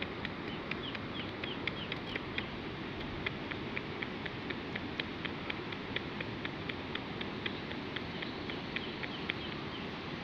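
A chorus of small animals calling in a rice paddy: short, high chirps come several a second, irregularly, over a steady hiss.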